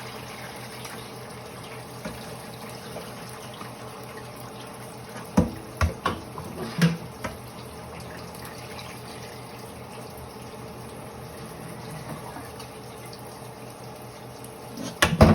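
Tap water running steadily into a sink as raw chicken is washed, with a few knocks and clatters about a third of the way through.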